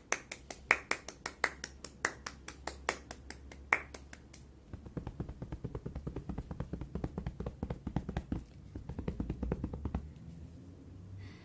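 Hands clapping over a video call: sharp claps, a few a second, for about four seconds, then a faster, duller run of claps and taps that dies away near the end.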